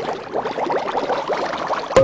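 Cartoon bubbling sound effect: a fast, dense run of little watery blips, cut off by a sharp click near the end.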